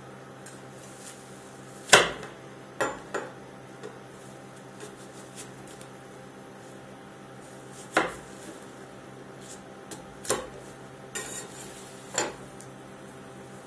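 Steel scrapers chopping apple on the frozen steel plate of a rolled ice cream machine: sharp metal clanks at uneven intervals, the loudest about two seconds in, with others near three, eight, ten, eleven and twelve seconds. A steady hum runs underneath.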